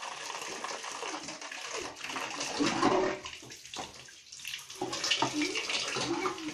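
Tap water running over a green papaya and splashing into a metal basin as the fruit is rubbed and washed by hand. The water noise eases off briefly a little past halfway, then comes back.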